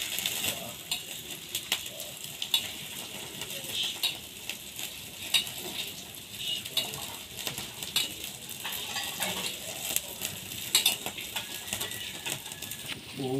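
Homa fire of burning wood sticks crackling, with a steady hiss and frequent sharp pops.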